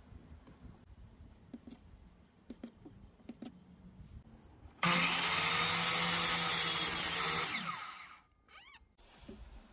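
A few light taps and knocks, then an electric power tool starts abruptly about five seconds in. It runs at steady speed for about two and a half seconds, then winds down with a falling pitch.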